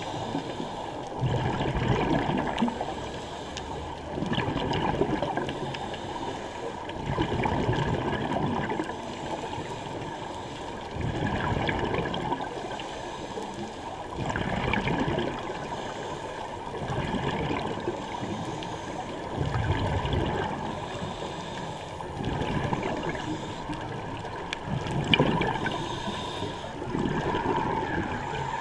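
Scuba regulator exhaust bubbles gurgling underwater, rising in swells about every three seconds with each breath out.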